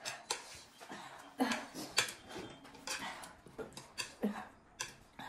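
Eating sounds from spicy noodles: short slurps and sharp breaths through the mouth, coming several times at irregular intervals.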